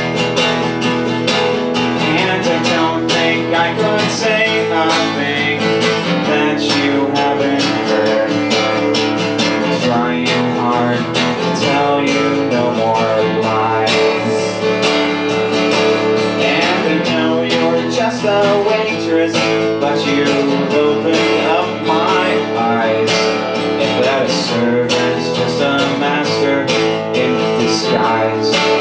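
Acoustic guitar strummed steadily, an instrumental stretch of a song played solo.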